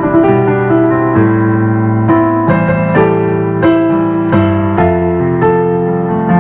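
Slow, sustained keyboard or piano chords, changing about once or twice a second.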